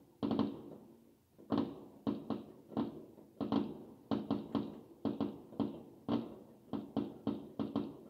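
Aerial fireworks going off in quick succession: a string of sharp bangs, about two to three a second and irregularly spaced, each with a short echoing tail.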